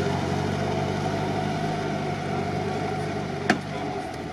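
UAZ off-roader's engine running at low, steady revs as it crawls away through mud, slowly fading. A single sharp click about three and a half seconds in.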